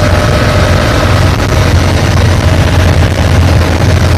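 Cadenazzi Super Como wooden runabout's engine running steadily underway, a loud low drone with a hiss of water and wind over it, heard from the cockpit.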